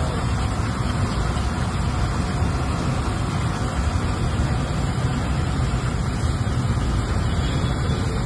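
Steady low roar with a hiss over it from a large wok of potato chips frying in bubbling oil over a gas burner.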